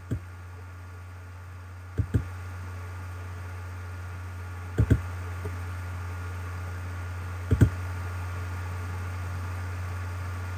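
Four quick double clicks at a computer, about two to three seconds apart, advancing presentation slides and their text builds, over a steady low electrical hum.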